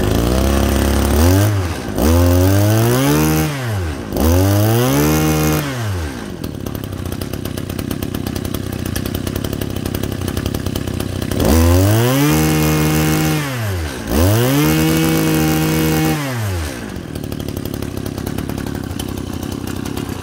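Small two-stroke Ryobi brushcutter engine (a 23 cc TL23 type, running on a mini butane gas canister) running after being pull-started. It idles steadily and is revved up and back down five times: three revs in the first six seconds, then two more after several seconds of idle.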